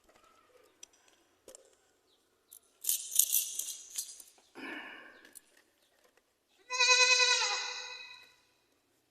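Goat calling three times: a harsh, noisy cry about three seconds in, a short bleat, then a long, loud bleat that drops in pitch at its end.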